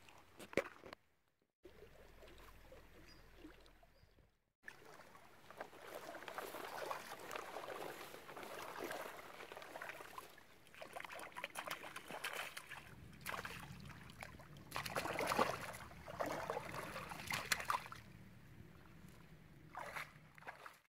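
Water sloshing and splashing in uneven surges as someone wades through a shallow river, after two short cut-outs near the start.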